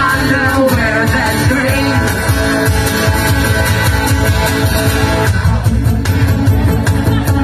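Live rock song played on guitar, with a voice singing in roughly the first two seconds.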